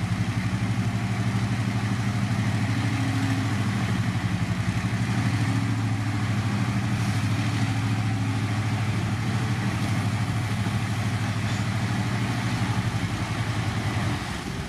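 Heavy earthmoving machine's diesel engine running steadily with a deep, fast-pulsing drone. It drops off near the end.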